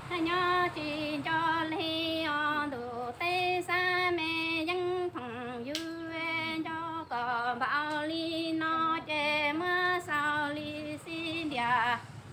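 A woman singing kwv txhiaj, traditional Hmong courtship song-poetry, solo and unaccompanied, in short phrases of long held notes with wavering ornaments. The singing stops near the end.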